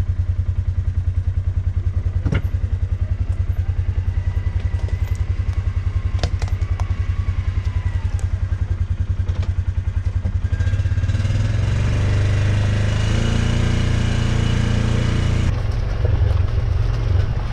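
Side-by-side utility vehicle's engine running at low revs with an even pulsing beat, and a few sharp knocks and clatters. About ten seconds in it picks up into a steadier, higher-revving drive.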